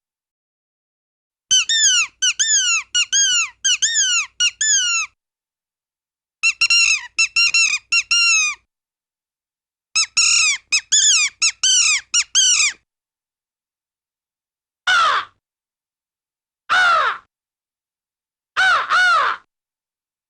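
A bird calling: three quick runs of short notes, each note falling in pitch, followed by three single longer falling calls.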